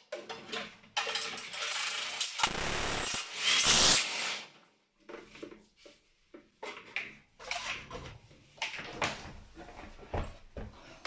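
Cordless drill-driver with a long Pozidriv bit extension running in a couple of bursts, the longest and loudest about two and a half seconds in and stopping about four seconds in. After that come scattered clicks and knocks as the tool and parts are handled.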